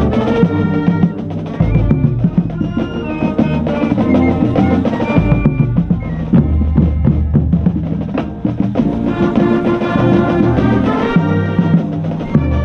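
High school marching band playing its field show: brass and woodwinds holding notes over a full drumline, with bass drums, snares and drum rolls. The bass drums sound close and heavy, heard from within the bass line.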